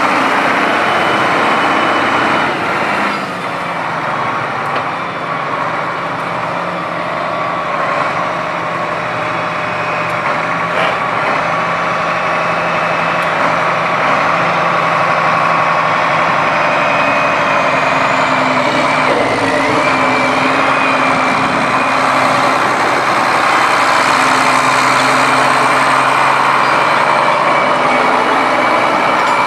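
Case 2390 tractor's 8.3-litre six-cylinder turbo diesel running as the tractor is driven, a steady engine note that shifts and briefly drops in loudness about three seconds in. A thin high whine rises and falls around two-thirds of the way through.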